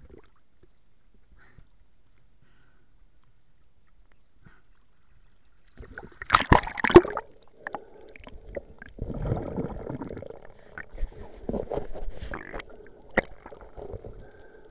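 Water sloshing and gurgling around an underwater camera on a night fishing dive. It starts about six seconds in with a loud cluster of splashy bursts, then continues irregularly with a few sharp knocks.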